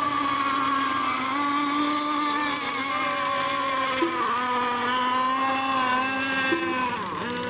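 Several radio-controlled racing boats' engines running at once: a buzzing whine of overlapping pitches that dip and climb again as the boats throttle off and back on.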